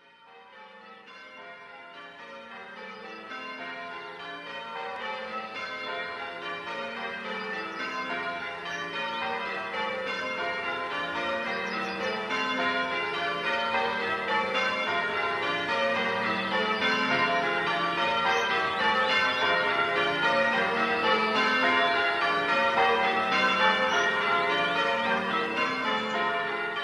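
A peal of church tower bells rung in changes: a quick, continuous round of strikes on bells of different pitches, fading in gradually over the first ten seconds or so.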